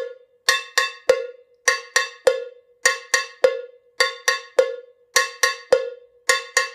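Handheld Latin cowbell (campana, cencerro) struck with a wooden stick in the basic salsa pattern: groups of three quick strikes repeating about every 1.2 seconds. Each note is short because the player's hand is clasped against the bell to deaden its ring.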